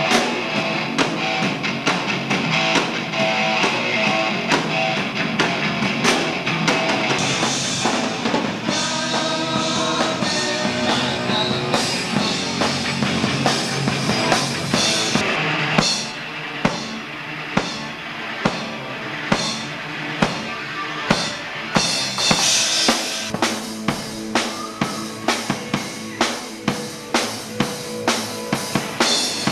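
Live rock band playing loud on stage, electric guitars and drum kit together. About halfway through the guitars drop back and the drum kit comes to the fore, with sharp, regular hits and cymbal crashes.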